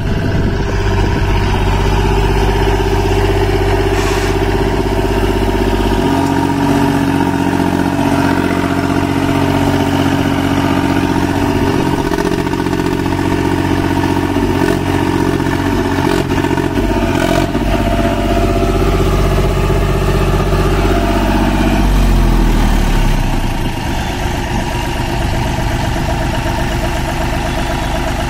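John Deere tractor diesel engine running hard as the tractor is held up on its rear wheels in a wheelie. The engine note changes pitch about six seconds in, and near the end it drops to a lower, quieter idle.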